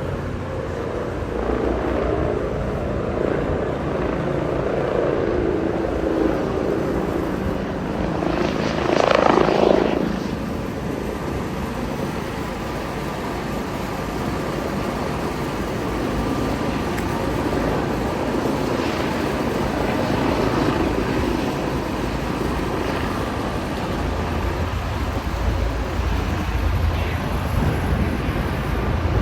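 Air ambulance helicopter running steadily with continuous rotor and engine noise, swelling louder about nine seconds in.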